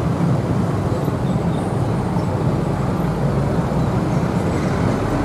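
Steady low rumble of a diesel-hauled passenger train moving slowly along the line, with a low drone running under it and road traffic noise mixed in.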